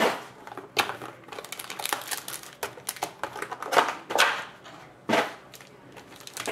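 Foil-wrapped trading card packs crinkling and rustling as they are handled, in irregular crackles with a few louder scuffs.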